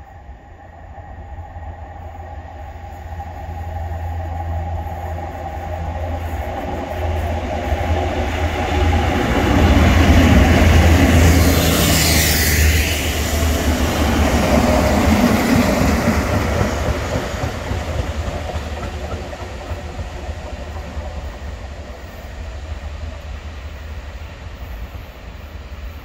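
Class 37 diesel locomotives, with English Electric V12 engines, approach with a low engine drone that builds steadily, pass close by at speed and then fade away. As they go by, a high sound drops sharply in pitch.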